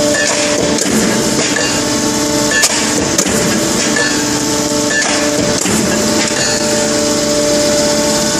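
CNC angle punching, marking and shearing machine running: a steady machine noise with a hum in it, broken by sharp clanks of the tooling, the loudest two close together about three seconds in.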